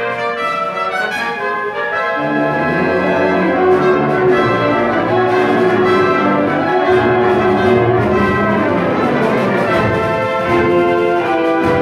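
Concert band playing, brass carrying sustained chords over the woodwinds. About two seconds in, low notes join and the band grows a little louder.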